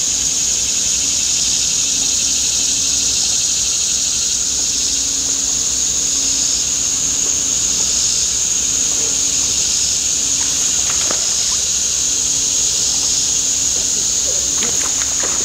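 Steady, unbroken high-pitched chorus of summer insects.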